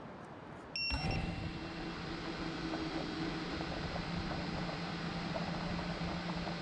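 Drone propellers humming steadily at an even pitch, cutting in abruptly with a short high beep about a second in.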